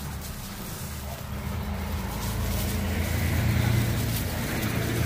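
A motor vehicle passing on the street, its engine rumble swelling to a peak about three to four seconds in, then fading.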